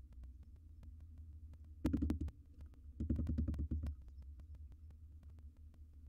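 Barn owl nestlings shuffling and scratching on the wooden floor and litter of their nest box: two short bursts of scraping and bumping, about two and three seconds in, over a steady low hum.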